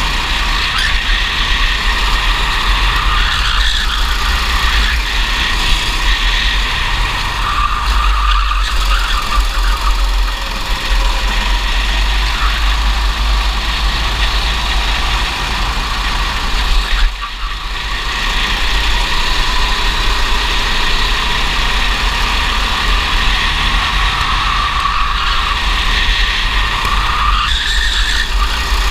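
Racing kart engine running at speed on a lap, its pitch rising and falling through the corners, over a heavy, steady low rumble on the onboard microphone. It briefly drops away about 17 seconds in.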